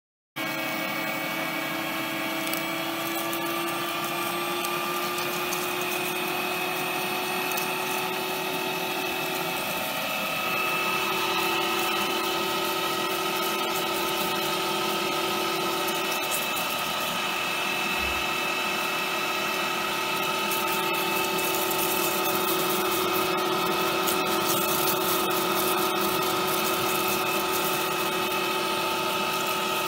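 Bosch electric meat grinder running under load, its motor giving a steady whine as it grinds a soft object through the perforated plate. The sound cuts in abruptly at the start and gets a little louder about a third of the way through.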